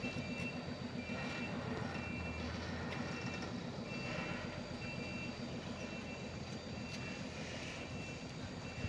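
Hino container truck's diesel engine running low and steady as the truck backs down a steep climb after losing power on it, with its reversing alarm beeping about once a second.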